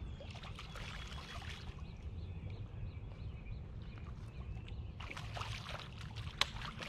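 Hooked carp splashing in the shallow water at the bank as it is drawn in on the line. The splashing is loudest for about a second and a half starting around five seconds in.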